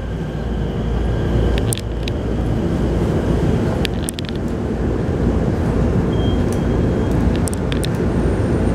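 Interior running noise of a Keikyu New 1000 series electric train: a steady rumble of wheels on rails, with short sharp clicks from the track about three times, as the train nears a station.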